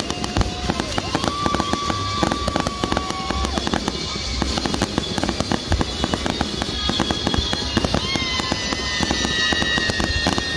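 Fireworks display: a dense run of pops, bangs and crackles from bursting shells over a low rumble. Long held tones of music sound over it.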